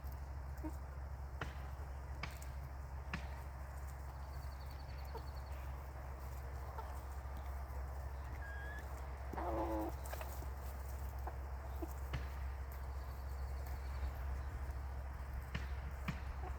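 Chickens in a coop clucking quietly, with one louder call about nine seconds in, over a steady low hum.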